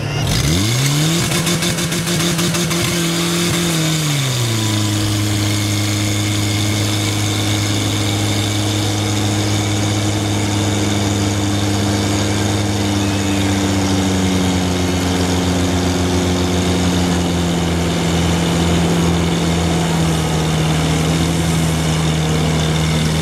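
Portable fire pump engine revving up hard in the first second and holding high revs. About four seconds in it settles to a lower steady speed, then runs on steadily while it pumps water through the hoses, easing down slightly near the end.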